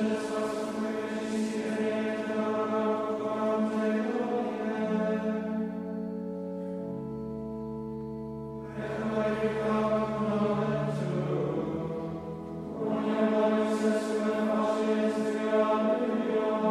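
Men's choir chanting Latin plainchant psalmody of Compline, with an organ holding steady chords beneath. The singing breaks off twice between verses, about five and twelve seconds in, leaving only the held organ chord before the voices come back in.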